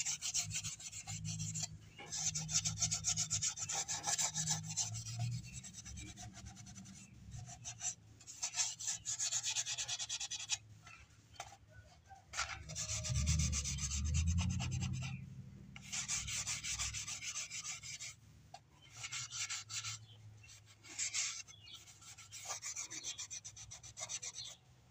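A pad rubbing over the surface of a carved fish by hand: quick scrubbing strokes in runs of a few seconds that stop and start, with a faint low hum underneath.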